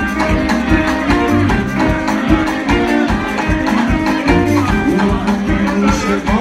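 A live band playing: drum kit, bass, electric guitar and saxophones over a steady beat.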